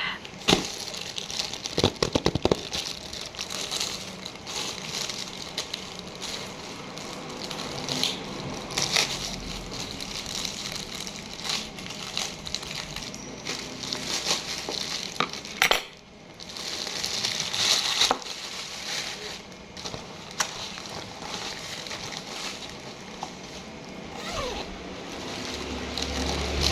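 Packaging being handled and opened: crinkling and rustling with scattered clicks and knocks.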